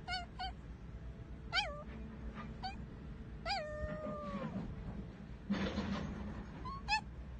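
Small dog howling: a series of short, wavering high-pitched yowls, with a longer one about three and a half seconds in that settles into a held, slowly falling note.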